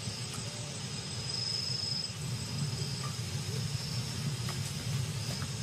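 Crickets trilling steadily at a high pitch over a low rumble, with a few faint short calls lower down.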